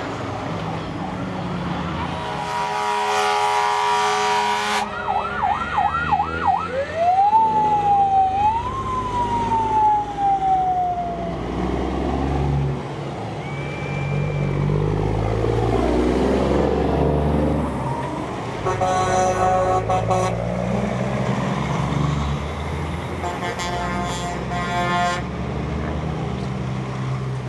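Semi-truck diesel engines running as big rigs pass, with a truck air horn blown three times (a long blast about 3 s in, shorter ones near 19 s and 24 s in). Between them a siren gives a fast yelp and then a slow rising and falling wail.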